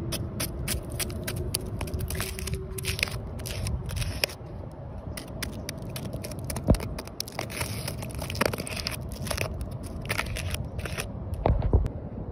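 Apple snail egg clutch being crushed and scraped, the eggs crackling in many small clicks, with a few sharper cracks in the second half.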